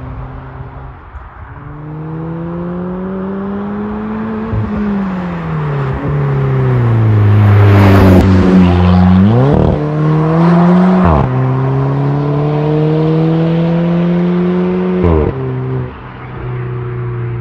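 Alfa Romeo 4C's turbocharged four-cylinder engine through a Magnaflow cat-back exhaust, accelerating hard. Its pitch climbs, falls away, then climbs again, with sudden drops in pitch at gear changes about eleven and fifteen seconds in.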